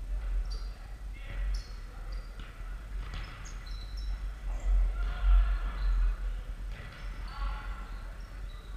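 Futsal play on a wooden sports-hall floor: trainers squeaking in short high chirps, footsteps and ball kicks, with players' shouts now and then, over a steady low rumble. The hall gives everything a reverberant ring.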